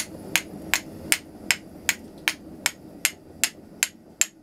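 Hand-forged steel flint striker struck against a piece of quartz in a steady rhythm, about two and a half sharp clicks a second, each strike throwing sparks: the hardened striker sparks well.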